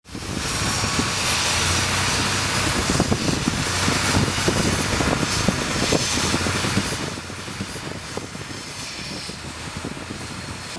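Motorboat engine running at speed with water and wind rushing past the hull: a steady loud drone and rushing noise that drops in level about seven seconds in.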